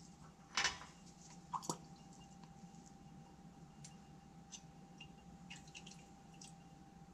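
Glassware clatters once as a small glass beaker is picked up, then a couple of small clinks and scattered faint light ticks as a pipette adds solution drop by drop to a beaker of stirred carbon slurry. A faint steady tone runs underneath.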